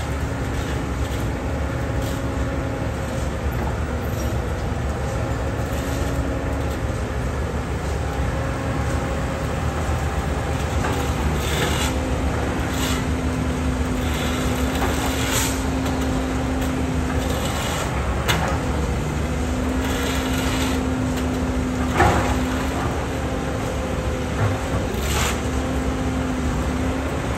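CAT 320D hydraulic excavator's diesel engine running steadily under work, with a hum that sets in and drops out for several seconds at a time. A few sharp knocks come through, the loudest about 22 seconds in.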